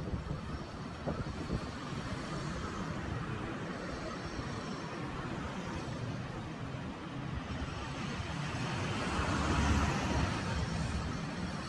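City street traffic: cars driving past on the road, with one vehicle passing louder about ten seconds in.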